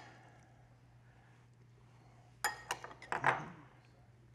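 A metal spoon clinks a few times against a glass bowl and a ceramic plate as sauce is spooned out, the clinks falling about halfway through. A faint steady hum sits underneath.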